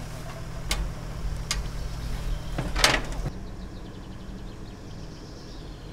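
Engine of an aerial work platform running with a steady low hum, with a few sharp metallic clanks and one louder knock as a person climbs into its metal basket.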